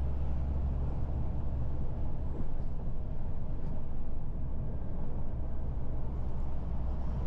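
Heavy truck driving at a steady speed: a constant low engine drone with tyre and road noise.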